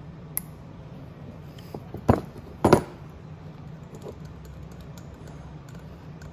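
Small metal clinks and knocks from an adjustable wrench working a brass jet out of a motorcycle carburetor and the parts being handled on the bench. There is a light click about half a second in, then two sharper knocks about two seconds in, the second ringing briefly.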